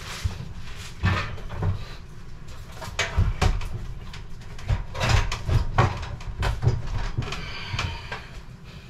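Irregular knocks, thumps and scraping as a vintage stove is shoved and wrestled into a tight cabinet opening.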